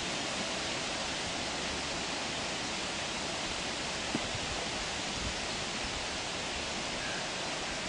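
Steady, even hiss of background noise, unchanging throughout, with one faint short knock about four seconds in.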